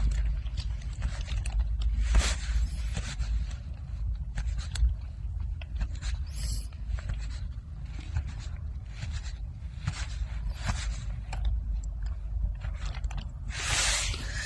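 Strong gusty wind, force 6–7, buffeting a tent: a continuous low rumble with scattered bursts of rustling and flapping from the tent fabric, the loudest near the end.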